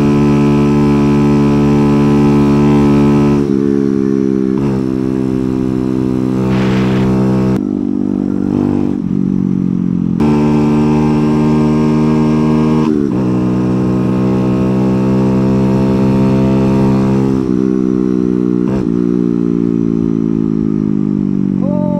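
Kawasaki Z125 Pro's 125cc single-cylinder engine running under way, heard from the rider's seat. Its note climbs and then drops sharply a few times as the rider shifts up, breaks off briefly about eight seconds in, and falls slowly near the end as the bike slows.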